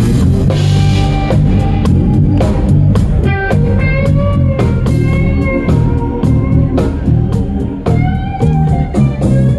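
Live rock band playing: electric guitar holding out melodic notes over electric bass and a drum kit.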